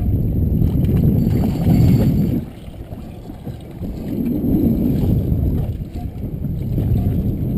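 Wind buffeting the camera microphone in gusts, a low rumble that drops away about two and a half seconds in and builds back up a second or so later.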